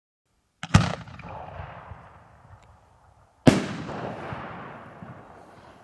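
A 75 mm aerial firework shell: a loud bang as it is fired from its mortar, then about three seconds later a second, sharper bang as it bursts. Each bang trails off in a long rolling echo.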